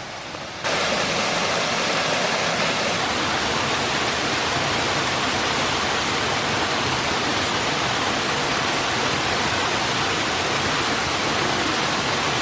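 Waterfall rushing in a steady, even roar of falling water, which jumps suddenly louder about half a second in and then holds.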